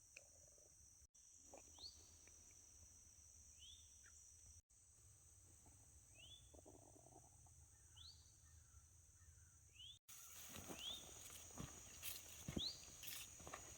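Faint outdoor ambience of a Florida forest: a steady high insect drone, with a short swooping call repeated about every two seconds. About ten seconds in it gets louder, and there are footsteps.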